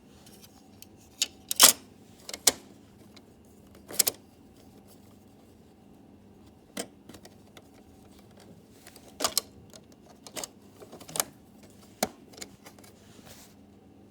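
Irregular sharp clicks and knocks from handling the keyboard and tools, about a dozen scattered through, the loudest about one and a half seconds in, over a faint steady hum.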